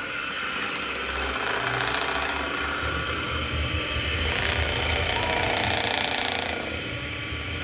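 Electric hand mixer running steadily, its beaters churning thick cake batter in a stainless steel bowl.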